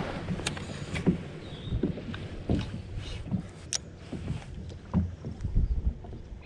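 Water slapping against a fishing boat's hull in irregular low knocks, with a few sharp clicks from handling a spinning rod and reel.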